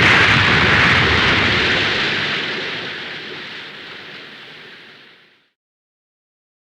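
Dragon Ball Z anime water sound effect: one loud, rushing burst of water that fades away steadily and stops about five and a half seconds in.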